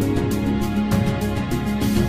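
Background music with held notes over a steady, quick beat.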